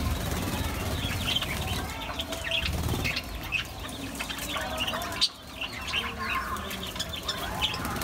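A flock of budgerigars chattering with many short, quick chirps, and wings flapping as birds fly about.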